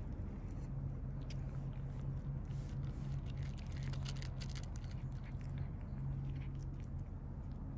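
Stray cats chewing and crunching their food, a quick run of small crunches, over a steady low hum.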